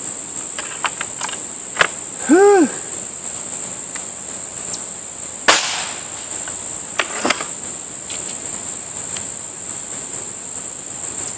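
A Beeman RS2 .22 spring-piston break-barrel air rifle: a click about two seconds in as the loaded barrel is closed, then a single shot about five and a half seconds in, followed by two quick knocks. A brief rising-and-falling tone sounds just after the click. Crickets buzz steadily throughout.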